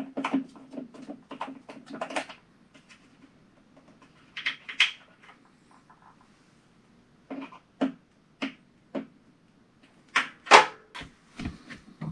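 Hand screwdriver backing out a sheet metal screw from a water heater's vent blower housing: a quick run of clicks for about two seconds, then scattered metal clicks and knocks.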